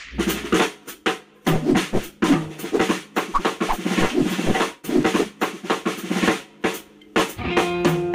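Background music driven by drums and percussion, with a quick, busy rhythm of snare and drum strikes.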